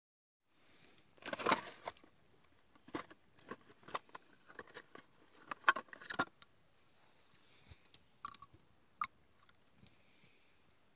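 Shotgun shells clicking and clattering against each other as a hand rummages through them in their cardboard box. The clatter comes in quick bunches, then thins to a couple of single clicks near the end.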